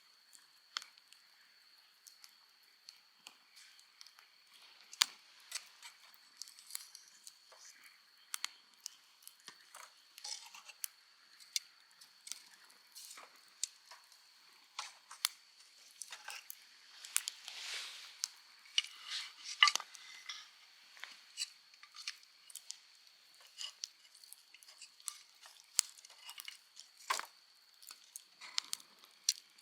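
Eating and handling dishes: scattered small crunches, clicks and taps of utensils, busiest about two-thirds of the way through, over a faint steady high whine.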